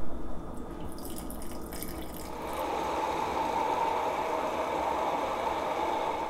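Hand blender running in a tall beaker, churning tamarind pulp, dates, lemon juice and water into a smooth chutney; about two seconds in the motor settles into a steady whine.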